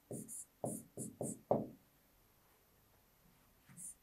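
Pen strokes on a whiteboard: a quick run of about six short strokes and taps in the first second and a half, then quiet until one faint stroke near the end.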